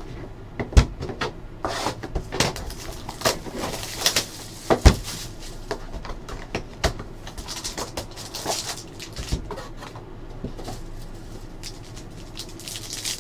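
A cardboard trading-card box being opened and its foil-wrapped packs handled on a table: scattered knocks and taps, two sharper ones about a second and five seconds in, among short crinkling rustles of pack wrappers.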